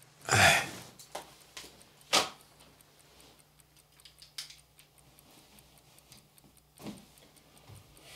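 Paper and bedclothes rustling as a person in bed puts a newspaper aside, loudest about half a second in, followed by a sharp click a couple of seconds later and a few softer clicks and knocks.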